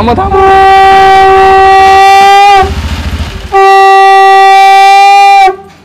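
Conch shell (shankha) blown in two long, steady blasts of about two seconds each with a short pause between, sounded at the close of the aarti.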